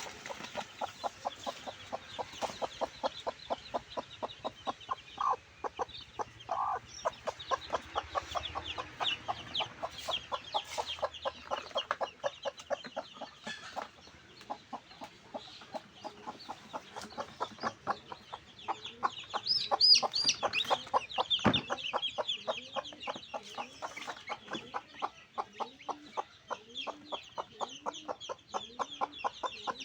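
Backyard chickens clucking and calling over a fast, steady run of short ticks, with high chirps throughout. There is a louder call about twenty seconds in and a single knock just after it. Low, rhythmic clucks come about once a second near the end.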